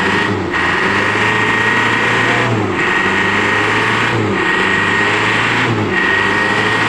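Truck engine running hard under load on a steep muddy climb, with a steady high whine above it. The engine note dips briefly four times, each about a second and a half to two seconds apart.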